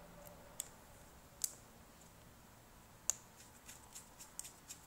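Small sharp clicks of a precision screwdriver and tiny screws against a smartphone's frame as the screws go back in: three separate clicks, then a quick run of lighter ticks near the end.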